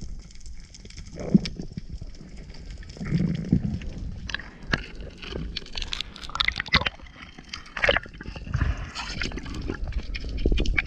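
Underwater sound picked up by a camera in its housing: water moving and gurgling around the camera, with low swells and scattered sharp clicks and knocks.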